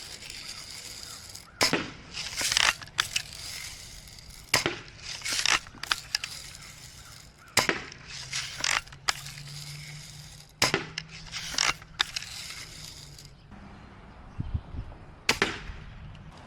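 Red Ryder lever-action BB gun firing shot after shot: sharp snaps about every three seconds, most followed about a second later by a second clack as the lever is worked to cock it for the next shot, about five shots in all.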